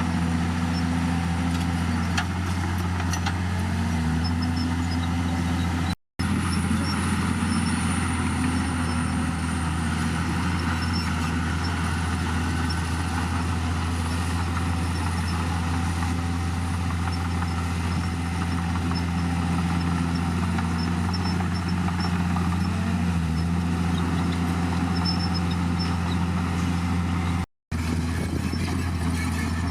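Heavy diesel engine of a crawler bulldozer running steadily, its pitch sagging briefly a few times as it takes load. The sound cuts out for an instant twice.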